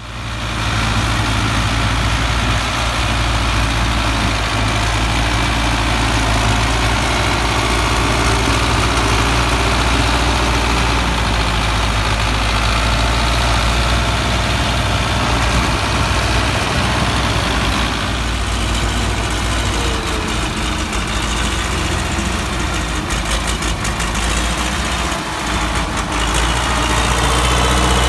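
Belarus MTZ-50 tractor's four-cylinder diesel engine running steadily, a deep, even engine note.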